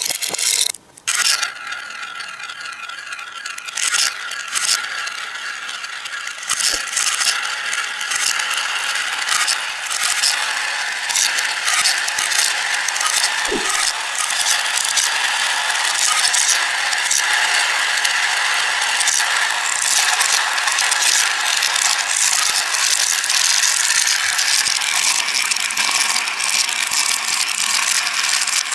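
Marbles clicking and clattering as they roll through a marble run track, a dense, continuous rattle of many small clicks, with a brief gap about a second in.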